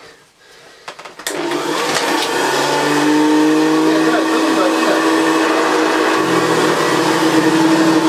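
Vintage Hoover Senior upright vacuum cleaner switched on about a second in, its motor running up to speed and settling into a steady whine over the rush of air and brush, pushed over a shag rug on its test run after reassembly.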